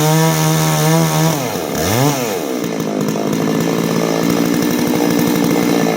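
660 two-stroke chainsaw running steadily at high revs, then dropping off about a second and a half in, blipped once, and settling to uneven low-rev running.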